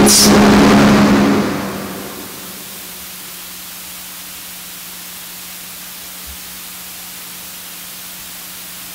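A held musical note, the end of the sung psalm, fades away over the first two seconds. It leaves a steady hiss with a faint low hum from the sound system.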